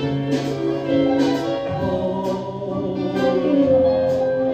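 Music: the accompaniment to a stage-musical ballad, with long held notes between sung lines.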